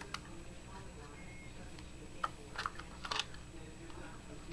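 Light clicks and scrapes of the speedlight's plastic housing being handled while its wires are tucked in, a few scattered taps with a small cluster about three seconds in, over a steady low hum.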